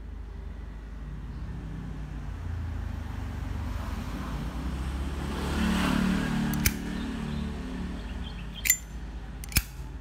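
Sharp metallic clicks from a WWII-era black crackle Zippo lighter as its hinged lid is handled and snapped shut, three clicks in the second half. Under them, a passing vehicle's low rumble swells to its loudest about six seconds in.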